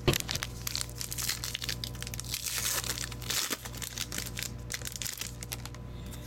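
Foil trading-card pack wrapper being torn open and crinkled, a dense crackling that is heaviest in the middle. It starts with a sharp knock.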